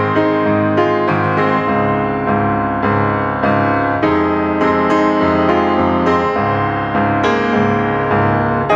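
Background piano music, a steady melody with notes struck about twice a second.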